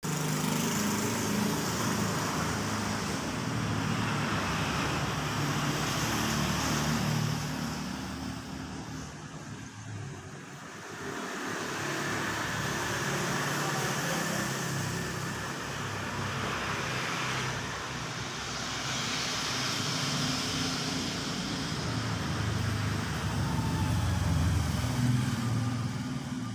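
Road traffic noise, with vehicles passing that swell and ease off, quietest about ten seconds in.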